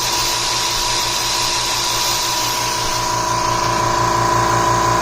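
Harbor Freight Fortress 26-gallon oil-less air compressor running steadily as it pumps up its tank: an even motor hum with a constant whine and a quick regular throb underneath, about as loud as a corded drill.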